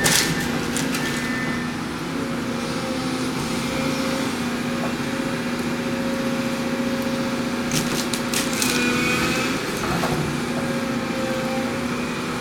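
Heavy demolition machine's engine running steadily at a held pitch, with a few short cracks of breaking wood near the start and again about two-thirds of the way through.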